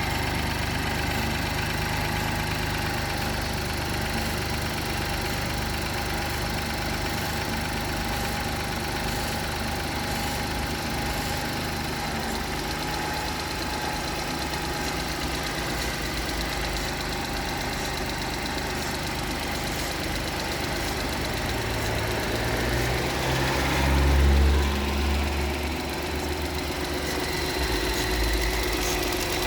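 BMW B38 1.5-litre turbocharged three-cylinder petrol engine idling, with a brief swell in loudness about two-thirds of the way through. The owner suspects that its bad start-up sound may come from bad spark plugs.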